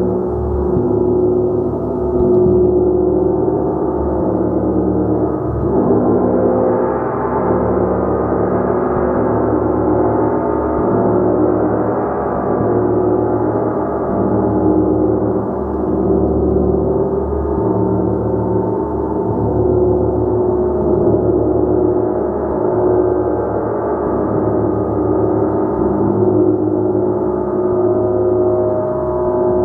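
Gong played continuously in a sustained, shimmering wash of many overlapping ringing tones that swell and ebb gently every couple of seconds.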